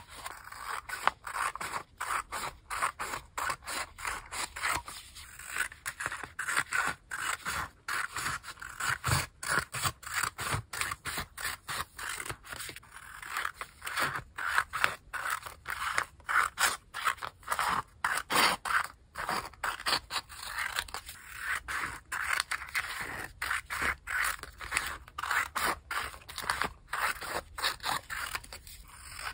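Pink-handled scissors cutting through paper sheets of stamped sticker squares: a steady run of short, crisp snips, a few a second, with the blades sliding along the paper between cuts.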